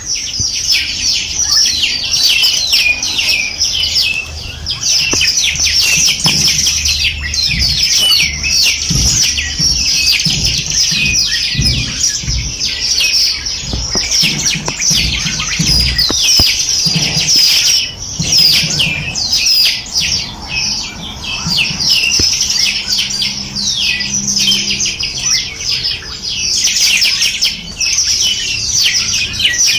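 A dense chorus of many small birds chirping and twittering at once, without a break. Low rumbles and thumps sound underneath through the middle stretch.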